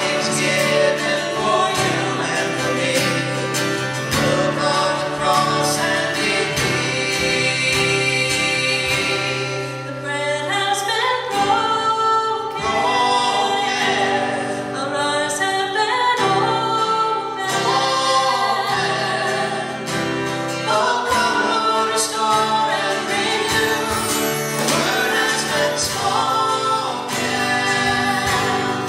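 A woman and a man singing a worship song as a duet, with an acoustic guitar strummed underneath.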